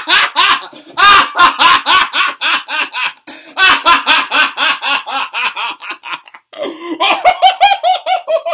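A man laughing hard in three long fits of quick, pitched bursts, with short breaks for breath between them; the last fit is higher in pitch.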